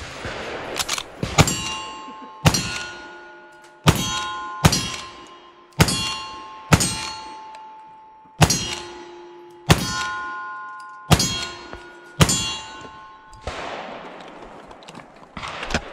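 A string of about eleven black-powder gunshots at roughly one-second intervals, each followed by the bright ringing of the steel plate target it hits. The ringing fades between shots.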